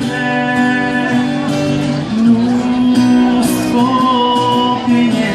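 Live music through the stage PA: a wordless passage of the song between sung lines, with long held notes.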